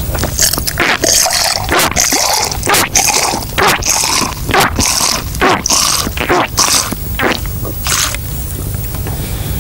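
Water from a man's stomach being brought back up and spouted out of his mouth in irregular gushes and splashes, about two a second, stopping near the end.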